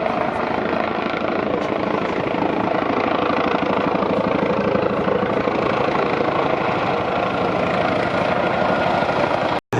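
Helicopter running close by, its rotor making a steady, fast, even chop. The sound cuts out briefly near the end.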